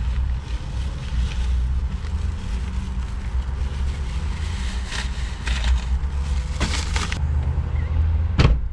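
Plastic grocery bags rustling and crinkling as they are lifted from a shopping cart and set inside a minivan, over a steady low rumble. A single sharp thump comes near the end.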